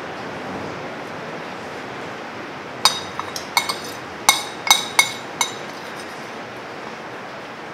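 Metal spoon clinking against a ceramic bowl while scooping up leftover sauce: about eight sharp, ringing clinks in quick succession, starting about three seconds in and ending a couple of seconds later.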